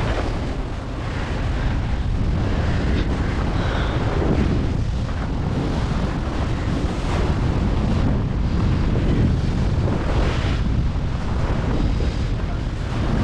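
Wind buffeting the microphone: a steady low rush that rises and falls in gusts.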